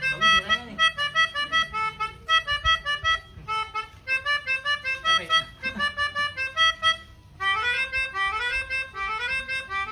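Telolet multi-tone air horn played by hand: quick runs of short, chord-like horn notes stepping up and down, then, from about seven and a half seconds in, repeated rising scales of notes.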